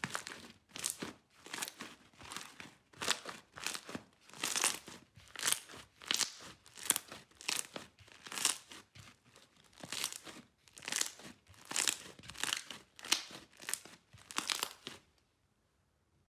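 Hands squeezing and kneading a lump of thick pink and purple slime, with a burst of wet crackling and crunching at each squeeze, about two a second. The squeezing stops about fifteen seconds in.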